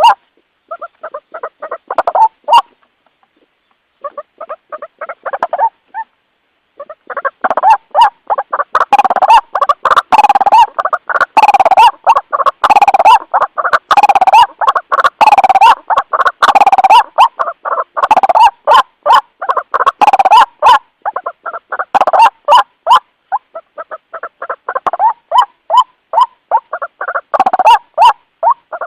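White-breasted waterhen (ruak-ruak) calling, used as a lure call: fast runs of short, harsh repeated notes. The calling stops briefly about three seconds in, then comes back as a long, loud, dense run.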